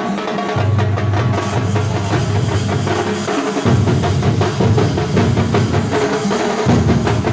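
Drum-heavy music: a dense, fast run of drum strokes over a deep bass line that changes note a few times.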